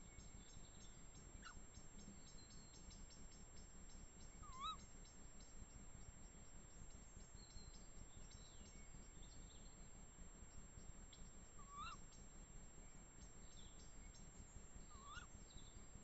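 Tawny owl giving three short, sharp, faint calls several seconds apart over a quiet night-forest background.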